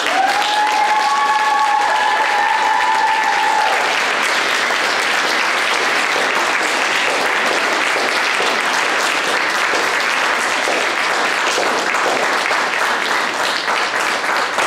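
An audience applauding steadily, with a few voices giving held cheers over the first few seconds.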